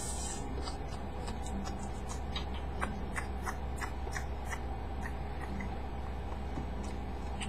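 Faint light clicks at irregular intervals, a few a second, over a steady low hum.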